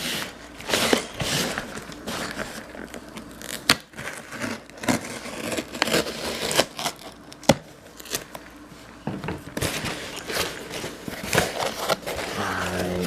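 A shipping package being cut and torn open with a knife, with packaging rustling and crinkling in irregular bursts and two sharp clicks.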